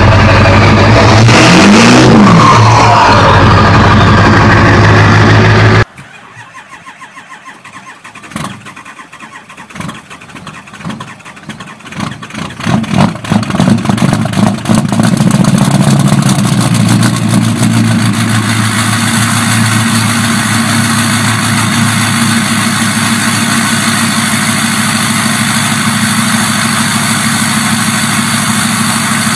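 A loud running engine cuts off abruptly about six seconds in. Then a cold engine turns over, fires unevenly and catches, and from about fifteen seconds in it runs steadily.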